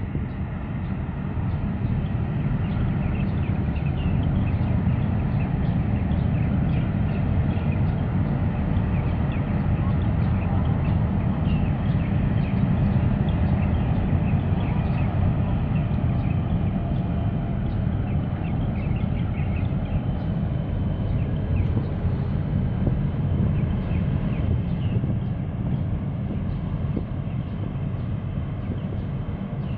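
Steady low rumble of the large container ship CMA CGM Racine passing close by under way, swelling over the first few seconds and then holding. Faint high chirps sound above it.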